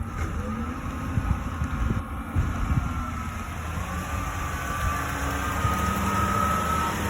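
A motor running steadily, with a low hum and a thin whine that drifts slightly up in pitch, over gusts of wind on the microphone.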